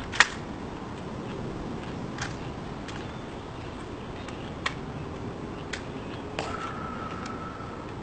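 Sharp cracks and clicks from a rifle: one loud crack about a quarter of a second in, then a few much fainter clicks spread through, with a faint steady tone in the last second and a half.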